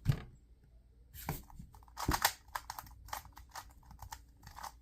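2x2 speed cube being turned and handled by hand: a run of quick plastic clicks and clacks, busiest about two seconds in.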